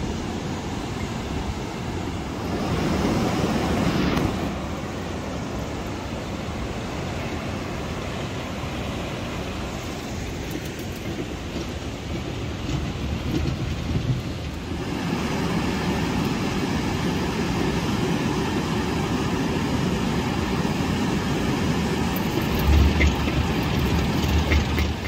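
Surf breaking on the beach with wind buffeting the microphone, a steady rushing rumble that gets somewhat louder partway through, with gusty low thumps near the end.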